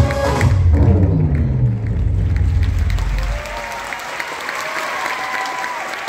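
Audience applauding as the dance music ends; the music's heavy bass stops about three and a half seconds in, leaving the clapping.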